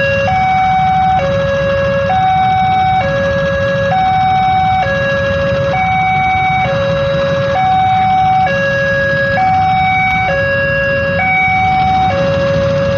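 Electronic two-tone warning alarm, a high and a low tone alternating about once a second without a break, over a steady low rumble. The alarm sounds while a train is due.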